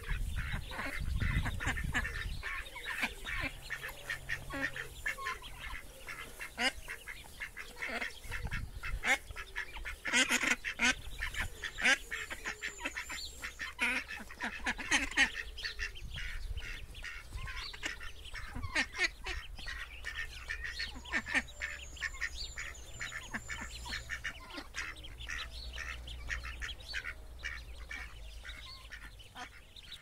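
Ducklings peeping in a rapid, continuous chatter, with occasional louder, lower calls from adult ducks.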